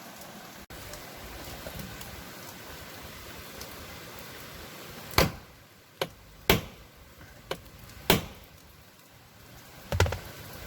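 Hammer striking the metal door-lock striker on a Tata Safari Dicor's door frame: four sharp blows about a second and a half apart in the second half, with a couple of lighter taps between them. The blows knock the striker inward a millimetre or two so the door shuts tighter and stops rattling.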